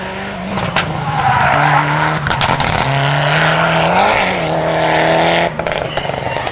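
Mitsubishi Lancer Evolution rally car's turbocharged four-cylinder engine under load as the car slides through a gravel corner, tyres scrabbling on loose stones. The engine note steps and rises in pitch a few times, with a few sharp cracks, then stops abruptly near the end.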